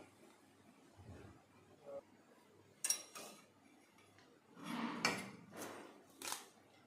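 Metal kitchenware being handled over a cooking pot: a few light clinks and knocks of a steel bowl and utensils, with a short scraping rustle about five seconds in, as rice is brought over to layer onto the chicken.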